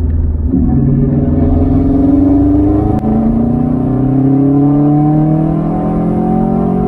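Turbocharged EJ25 flat-four of a 2006 Subaru Impreza WRX STI accelerating hard, heard from inside the cabin. The engine note climbs, drops at a quick upshift about three seconds in, then climbs again.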